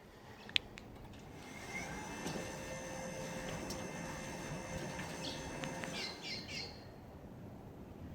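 Electric sliding gate operator running for a few seconds with a steady whine of several fixed tones, after a sharp click. Near the end, a few quick falling bird chirps.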